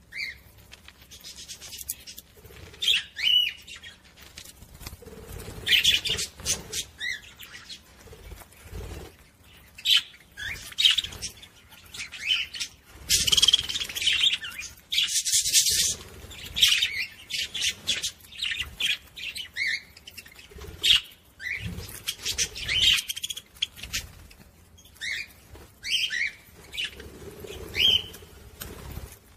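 Budgerigar warbling: a fast, irregular chatter of short chirps mixed with scratchy, buzzy notes.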